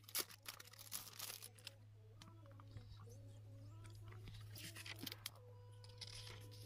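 Quiet rustling and light knocks of a hardcover diary and paper packaging being handled: lifted out of a box and its cover opened. A low steady hum runs underneath.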